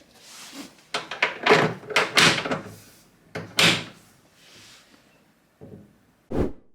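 Cabinet door with Blum hinges being clipped onto its backplates: a run of sharp clicks and knocks as the hinge arms are fitted, then the door shut with a solid thump near the end.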